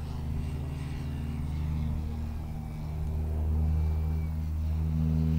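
Electric brushless outrunner motor and large propeller of a giant-scale RC airplane, a steady low propeller hum, growing louder over the second half as the plane comes closer.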